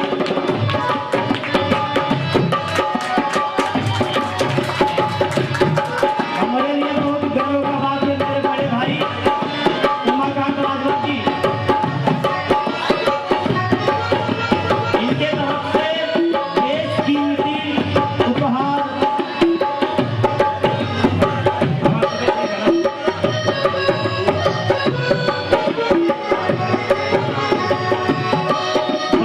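Tabla playing a brisk, steady rhythm under held notes from an accompanying melodic instrument: an instrumental stretch of Bhojpuri folk music with no singing.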